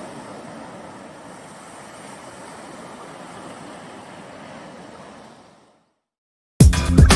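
Steady wash of ocean surf on a beach, fading out about five and a half seconds in. After a brief silence, loud music cuts in near the end.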